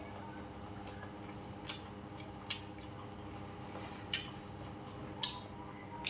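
Sounds of someone eating at a table: about six sharp clicks and smacks a second or so apart, from chopsticks and spoon against the dishes and from chewing, over a steady faint background hum.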